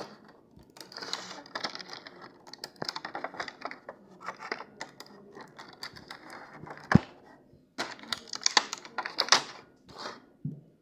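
Packaging being handled and opened: rapid crackling and clicking of plastic and cardboard, with one sharp knock about seven seconds in.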